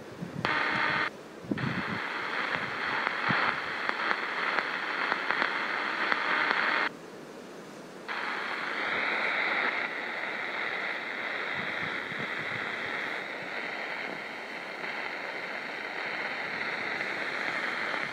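Tecsun PL-600 receiver's speaker giving out AM static and hiss while it is tuned across the medium-wave and longwave bands. The audio drops out briefly a few times as it changes frequency, and a faint high whistle, drifting slightly, sits under the noise in the second half.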